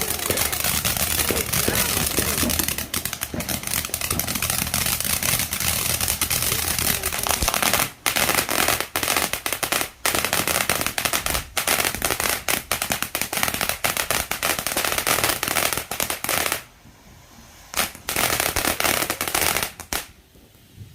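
TNT Cool Cat consumer firework going off: a loud, continuous crackle of rapid pops that stops about 16 seconds in, followed by a couple of short last bursts.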